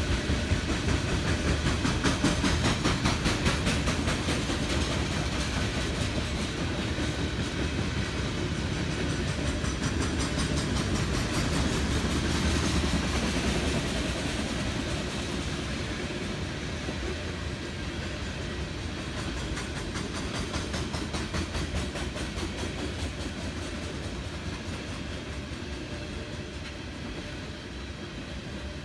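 Coal train's freight cars rolling past on steel rails: a steady rumble with wheels clicking over the rail joints again and again. It grows gradually quieter toward the end.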